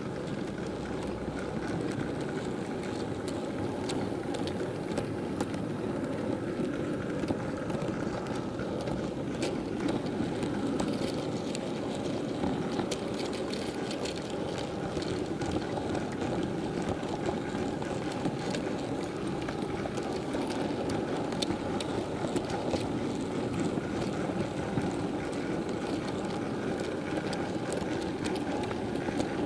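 Model freight train running along the track, heard from a camera riding on one of its wagons: a steady rattling running noise with frequent small irregular clicks.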